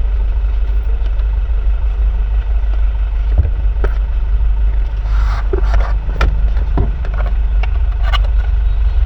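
A steady low rumble with scattered short clicks and knocks.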